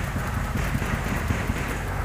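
Wind rumbling on the microphone under a steady rustling hiss, with scattered faint ticks.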